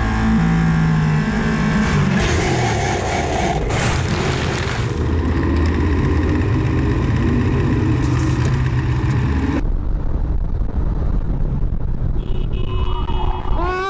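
Onboard sound of a racing motorcycle's engine and wind at speed, its pitch falling and rising in the first seconds, then a harsher rushing noise from about two to five seconds in as the bike runs off the track into gravel, with the engine still running after. Near ten seconds it cuts to a different motorcycle riding more quietly on a road.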